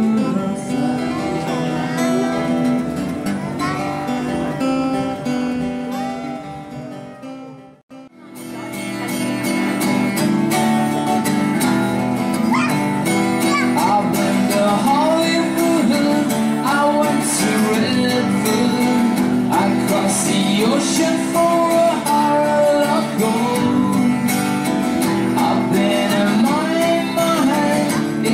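Acoustic guitar strummed in a steady rhythm, with a harmonica playing a bending melody over it and no singing. The music fades out briefly about eight seconds in and comes back.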